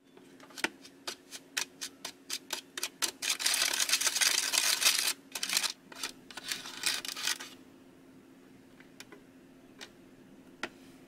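Small plastic spoon clicking and scraping against a plastic candy-kit tray while powder and water are stirred into a gel: quick taps at first, then a couple of seconds of fast scraping, then slower stirring and two last clicks.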